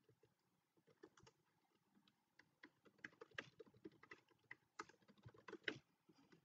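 Faint computer keyboard typing: a run of short keystroke clicks, few at first, then coming quickly from about two and a half seconds in.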